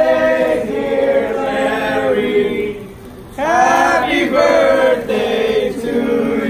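A group of voices singing a birthday song together around the cake, with held notes and a brief pause a little under halfway through before the singing picks up again.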